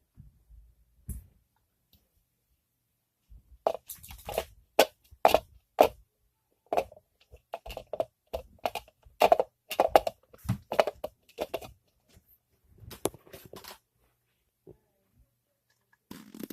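A rapid, irregular run of sharp crackles and crunches from plastic being handled, starting about three and a half seconds in and lasting about ten seconds.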